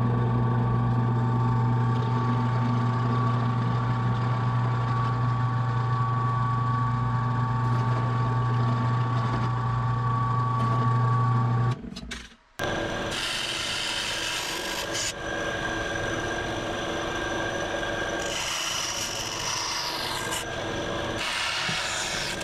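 Bench power tools working small aluminum gusset parts: a steady motor hum for about twelve seconds, then, after a brief break, a rougher cutting and scraping sound, with a bandsaw cutting aluminum near the end.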